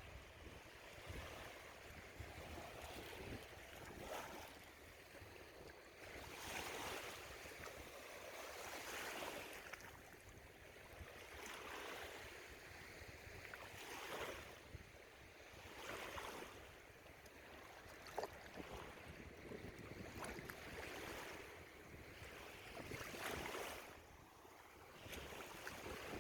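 Small waves washing onto the shore, swelling and falling back about every two to three seconds, with wind rumbling on the microphone.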